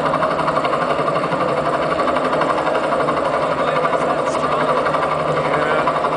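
A motor or engine sound effect with a steady, fast mechanical rattle over a low hum.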